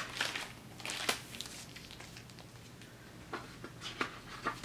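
Light paper rustling and a few soft clicks and taps as a hardcover picture book is handled and closed.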